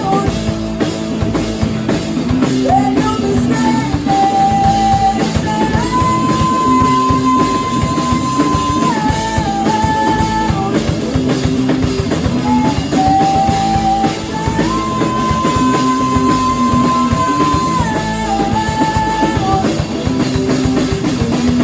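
Live rock band playing with drum kit and guitars; a held melodic line plays the same phrase twice, about nine seconds apart.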